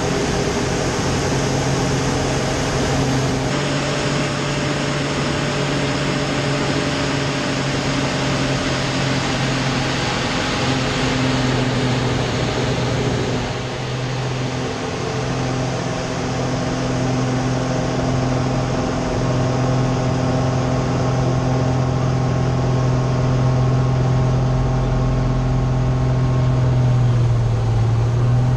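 Slick 540 aerobatic aircraft's Lycoming flat-six engine and propeller running at high power, heard from inside the cockpit with air rushing past. The level dips briefly about halfway through, and the engine note wavers near the end as the aircraft manoeuvres.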